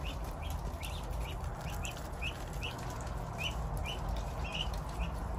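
Ducklings peeping, short rising peeps about two or three a second, mixed with faint clicks of bills pecking at feed pellets on concrete, over a steady low rumble.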